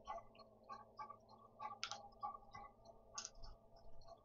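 Faint, quick ticking, about three light ticks a second, with two sharper clicks near the middle.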